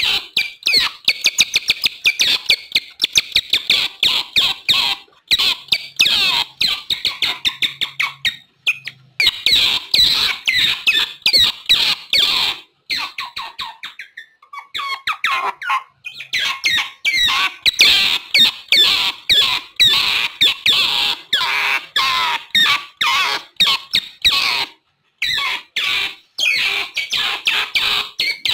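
Otters calling: fast runs of short, high chirps, many a second, broken by a few brief pauses.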